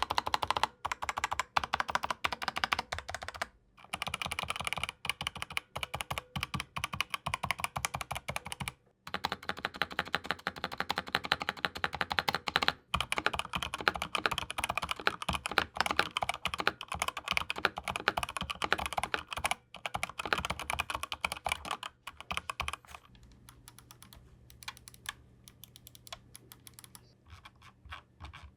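Fast typing on a Razer BlackWidow V4 Pro mechanical keyboard with Razer Yellow linear switches: a dense run of key clicks with short breaks, thinning to slower, softer keystrokes in the last few seconds.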